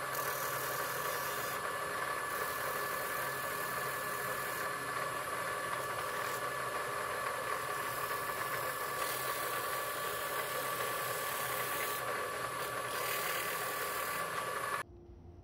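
Benchtop drill press running with a steady whine, spinning a wooden hand-plane knob that is being sanded with a sanding sponge and sandpaper, and the hiss of the abrasive comes and goes over the whine. The sound stops abruptly near the end.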